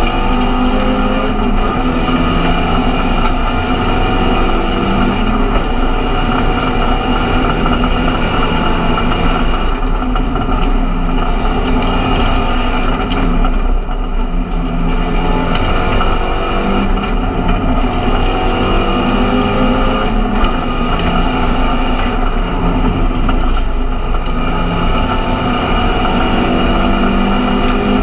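Seat León Supercopa MK1 race car's engine heard from inside the cabin, running hard and revving up through the gears. Its pitch repeatedly climbs and drops back at the shifts, with brief lifts off the throttle a few times.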